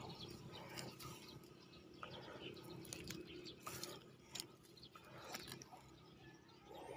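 Near silence: faint outdoor background with a few soft ticks and rustles.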